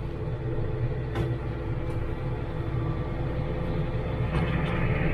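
Tractor engine idling steadily while it warms up.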